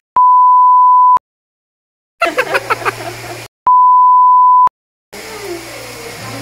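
Two edited-in censor bleeps, each a steady one-second beep tone, with the soundtrack cut to dead silence around them. Between the two bleeps comes a short burst of a voice.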